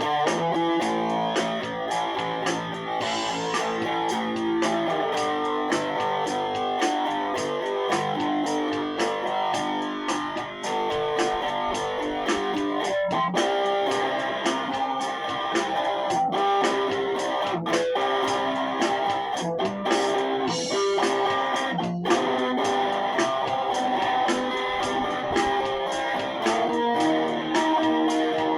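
Electric guitar playing a melodic, picked line with changing notes over a steady rhythm.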